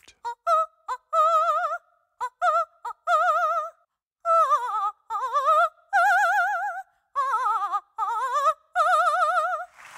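A female opera singer singing unaccompanied in high, short phrases with a wide vibrato, broken by brief silences. A few quick notes come first, then longer held notes, some sliding downward.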